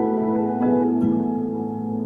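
Soft ambient background music of sustained ringing tones, with new notes coming in about half a second in and again about a second in.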